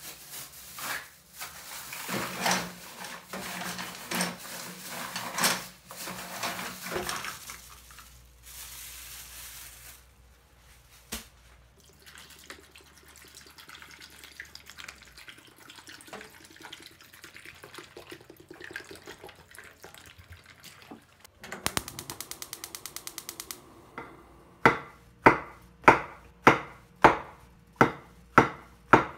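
Water pouring from a plastic bottle into a pot of mussels, after some clattering and splashing. Near the end comes a knife chopping mushrooms on a wooden chopping board, about two sharp chops a second.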